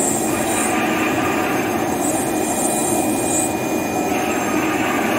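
CNC router spindle with its bit cutting round printed shapes out of a flat board: a steady grinding cutting noise with a thin high whine that drops out about four seconds in.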